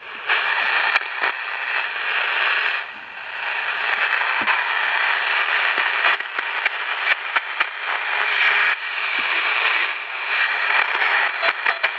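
Static hiss from a Candle pocket radio's small speaker, with scattered crackles and clicks. It dips briefly twice, about three and nine seconds in. The radio is playing again after being repaired.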